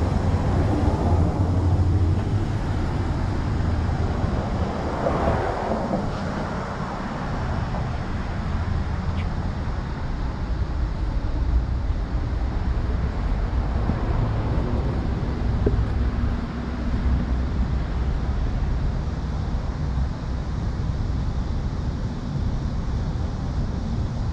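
Wind rumbling on the microphone over steady outdoor traffic noise, with a louder swell about five seconds in.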